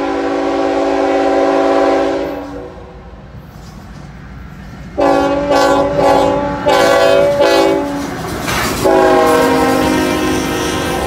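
A CSX freight locomotive's air horn, several notes sounding together: one long blast, a pause, a string of short broken blasts, then another long blast from about nine seconds in. As the locomotive passes, the freight cars start to rumble and clatter along the rails behind the horn.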